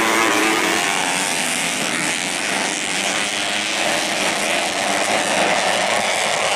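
Several modified underbone race motorcycles on a dirt track, their engines running at high revs together, the pitch rising and falling as the riders accelerate and jump.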